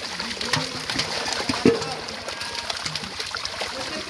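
Pond water splashing and trickling in small irregular splashes, with voices in the background and one short sharp sound a little under halfway through.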